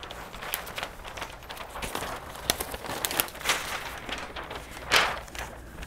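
Large sheet of flip-chart paper rustling and crackling as it is lifted and flipped over the easel pad, with scattered small crinkles and two louder swishes about three and a half and five seconds in.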